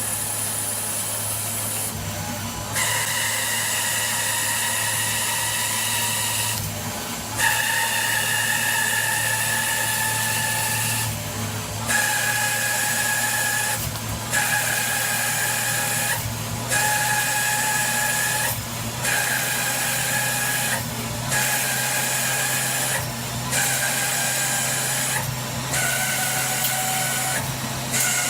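CNC milling machine running: a steady high whine from the spindle and cutter over a low hum. The whine drops out briefly every two to three seconds and comes back at a slightly different pitch.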